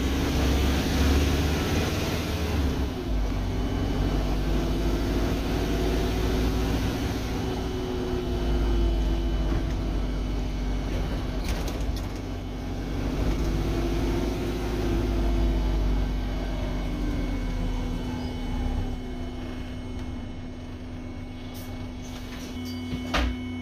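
City bus engine and transmission running, heard from inside the passenger cabin as the bus drives. The engine note rises and falls twice as it pulls, then settles to a quieter steady hum near the end, with a couple of sharp rattles or knocks.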